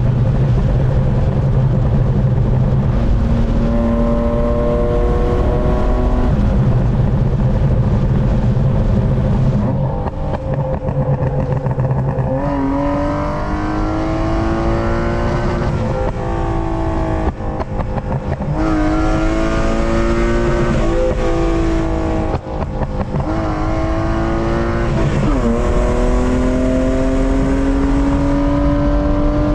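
BMW E36's M52B25 inline-six with a pops-and-bangs tune, running at a steady pitch for about ten seconds, then pulling up through the gears. The note climbs and falls back at each shift, about four times, with short crackles from the exhaust as the revs drop.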